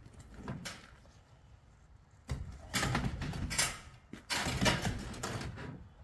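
Sectional garage door panels rattling and scraping in several loud bursts as they are pushed and pulled by hand, starting about two seconds in.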